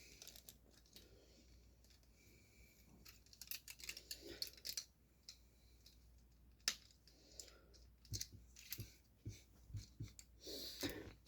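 Faint clicking and rattling of hard plastic toy parts being handled: the peg of a small weapon being worked into the hole on the back of a Transformers Ratchet action figure, with one sharper click about two-thirds of the way through.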